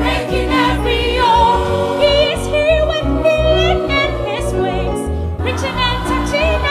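Gospel choir music with a band: voices sing long, wavering held notes over a steady bass line.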